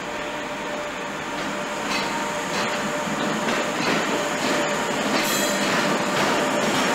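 Locomotive-hauled passenger train rolling in behind an electric locomotive, wheels clicking over rail joints and pointwork with some wheel squeal, growing louder as it draws near.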